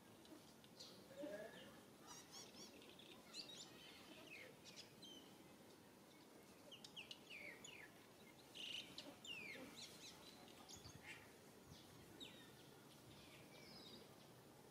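Faint scattered bird chirps and short falling calls over a low steady hiss.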